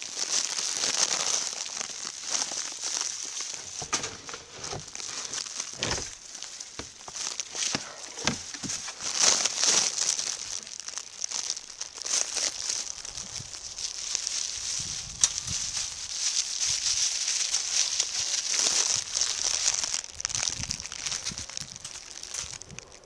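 Irregular rustling, crinkling and crackling: handling noise as the wire cage trap is picked up and carried through long grass, with many small clicks from the moving cage.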